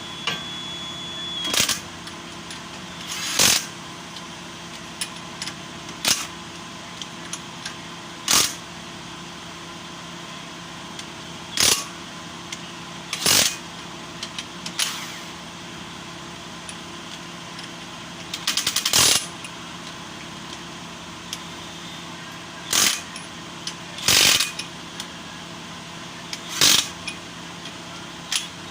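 Mechanic's hand tools working on a car's brake assembly: about a dozen short, sharp metallic bursts at irregular intervals, including a quick run of ratchet-like clicks about two-thirds of the way through, over a steady low hum.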